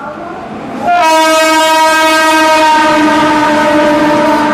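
Locomotive horn blowing one long, steady blast that starts about a second in, after a short lull.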